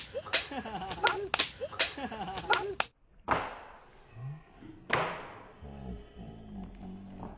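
Sharp clicks and slaps with a little voice, then a sudden drop and two whip-crack sound effects about a second and a half apart, each fading out, followed by a low humming tone.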